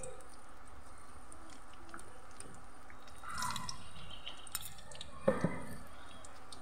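Bread pakoras deep-frying in very hot oil: a steady sizzle with small pops and crackles, and two sharper clicks about five seconds in.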